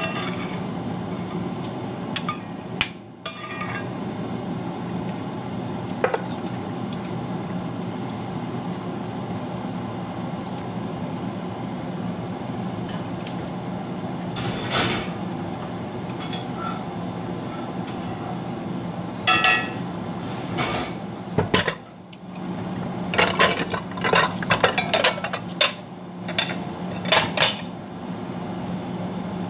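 Kitchenware clatter: a spatula scraping and tapping in a cast-iron skillet and against a ceramic bowl, with scattered single clinks and then a quick run of sharp clinks and knocks over the last ten seconds or so, over a steady low hum.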